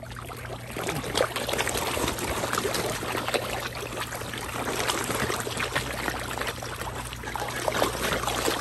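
Water splashing and sloshing as a packed crowd of big fish jostle and gape at the surface in a feeding frenzy over thrown popcorn: a dense, continuous patter of small splashes that picks up about a second in.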